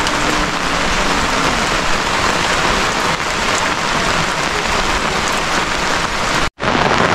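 Steady heavy rain falling, a dense even hiss, breaking off for a split second near the end.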